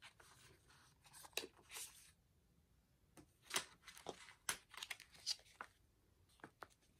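Paper and card rustling as inserts are shuffled, then a run of sharp crinkling crackles as a translucent tracing-paper sheet over the album's photobook is lifted and handled.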